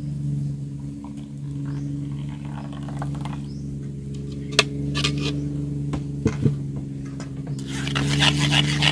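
Metal spoon scraping rapidly against a stainless mesh strainer, pushing blended rice batter through the sieve; the scraping starts near the end. Before it there are a few light knocks against the metal, over a steady low hum.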